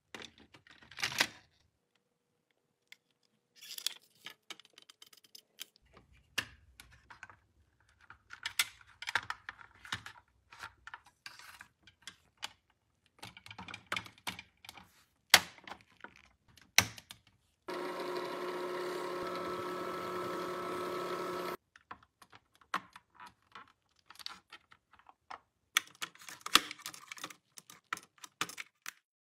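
Hard plastic toy parts being handled, tapped and snapped together in a string of sharp clicks and light rustles. A steady buzz lasts about four seconds a little past the middle and cuts off suddenly.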